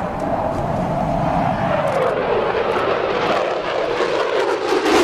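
F-22 Raptor's twin Pratt & Whitney F119 turbofan jet engines, a loud roar whose pitch falls about two seconds in, with a crackle growing toward the end.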